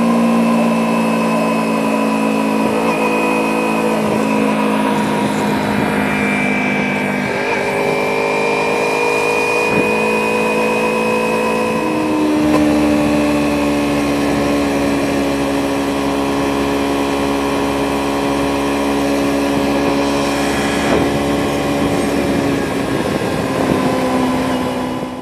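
Kawasaki Ninja 250R parallel-twin engine running under way at steady revs, with wind rush over the microphone. The engine pitch changes abruptly twice, about seven and about twelve seconds in, as with gear changes, and otherwise drifts slowly.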